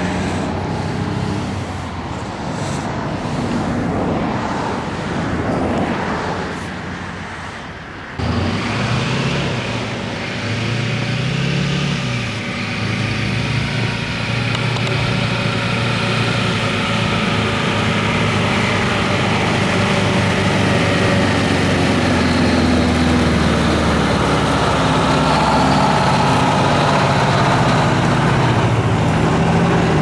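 Diesel engines of a forage harvester and a silage dump truck working side by side while chopping corn. The sound jumps suddenly louder about eight seconds in, the engine pitch rises and falls twice, and then it runs steady.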